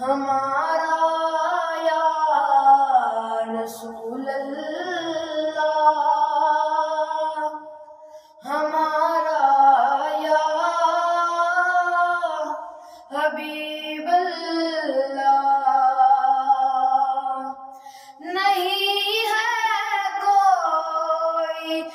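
A single high voice singing an Urdu naat without instruments, in four long, sliding phrases separated by short breaths.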